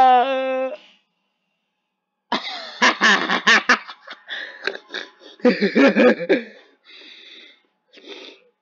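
A person's voice: a short, high-pitched cry, then after a pause a run of choppy, rasping vocal outbursts in rapid pulses, fading near the end.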